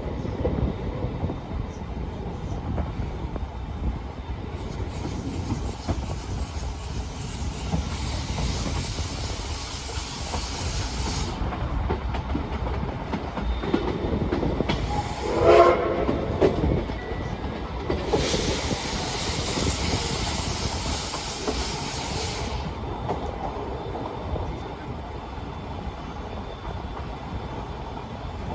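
Old-type passenger coach of the Paleo Express running along the line: a steady low rumble of wheels on rail with clickety-clack over the joints, and a high hiss that comes in two stretches of several seconds. About halfway through, a short locomotive whistle sounds, the loudest moment.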